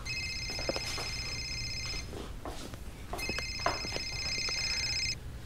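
A smartphone ringing with an incoming call: a high-pitched electronic ringtone in two rings of about two seconds each, with a pause of about a second between them.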